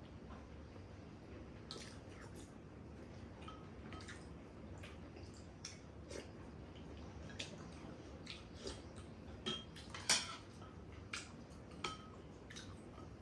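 Spoons and other cutlery clinking now and then against bowls and dishes during a meal, the loudest clink about ten seconds in, over a steady patter of rain.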